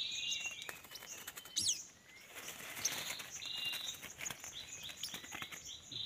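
Small birds chirping with short, high calls and one quick rising-and-falling whistle, over rustling and wing flutter from birds caught on glue-smeared sticks in the branches.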